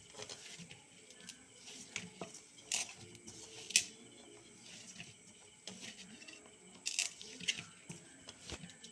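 Hands kneading ragi (finger millet) flour dough in a bowl: soft squishing and patting, with a few sharp clicks against the bowl, the loudest a little under four seconds in and again around seven seconds.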